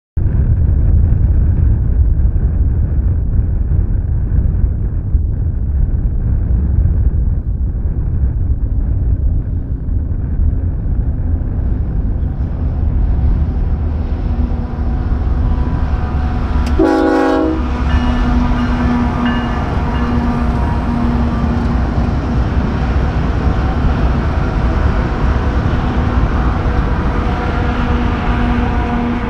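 Union Pacific manifest freight train running past with a loud, heavy rumble. A short horn blast sounds about seventeen seconds in, and steady tones carry on over the rumble after it.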